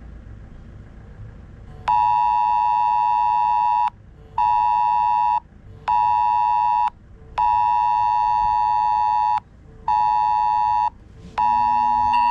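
Mobile phone sounding the UK government emergency alert test tone: two steady pitches near 1 kHz play together, starting about two seconds in. The tone comes in loud blasts in a long–short–short, long–short–short pattern, with half-second gaps between blasts.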